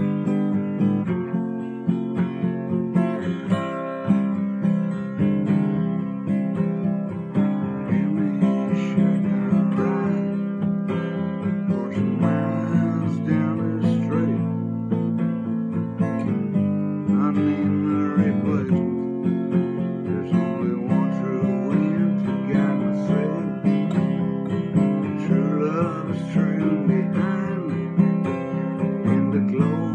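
Acoustic guitar playing an instrumental passage, several notes ringing together as chords with frequent picked or strummed attacks.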